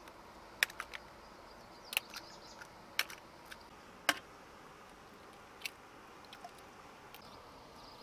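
Eggs being cracked: a string of sharp, irregular clicks of eggshell, some in quick pairs, thinning out in the second half.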